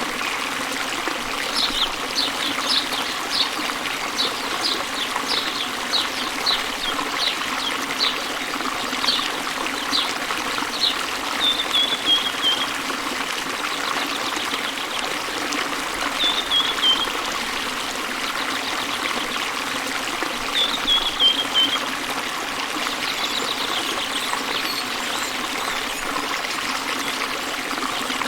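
Running water trickling steadily, with small birds chirping over it: a run of short high chirps, then three brief descending trills spaced a few seconds apart.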